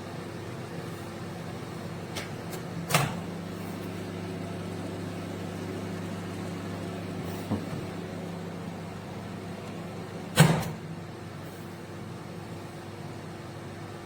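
Candy Smart CMG2071DS microwave oven running with a steady hum. There are two sharp clicks, about three seconds in and a louder one near ten seconds, and after the second the low part of the hum drops away.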